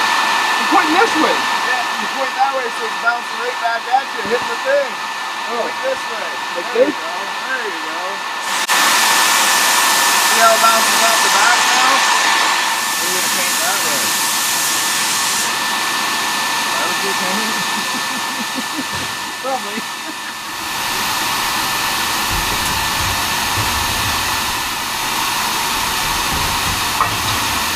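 Sandblast cabinet in use: a steady hiss of compressed-air blasting inside the cabinet, with a thin steady whistle over it. The hiss gets louder about a third of the way in, and a low hum joins about two-thirds through.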